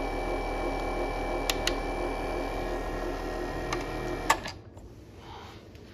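Small 12-volt water pump in a filter box running with a steady hum and a few light clicks; about four seconds in there is a sharp click and the hum stops.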